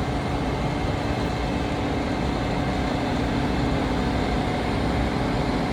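Steady mechanical drone of heavy urban machinery and traffic, with a constant low hum running under it.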